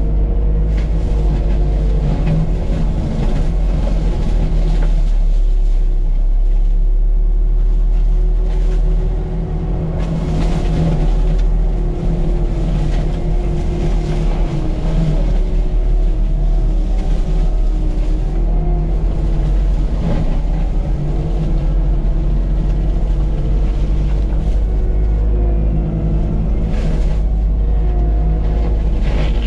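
CAT 259D3 skid steer's diesel engine running hard with a Gyrotrac forestry mulcher head spinning, a steady heavy drone with a whine that wavers up and down in pitch as the load changes.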